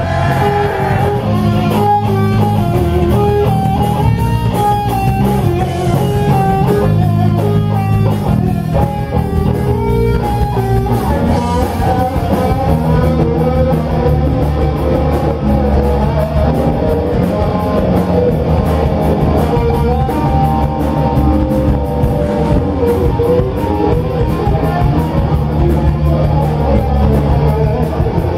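Rock band playing an instrumental passage live: a guitar carries a stepping melodic line over steady bass and drums, and the texture thickens about eleven seconds in.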